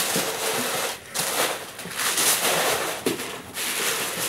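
Tissue paper rustling and crinkling in several long stretches as it is folded back into a cardboard shoe box, with short breaks about a second in and at about three seconds.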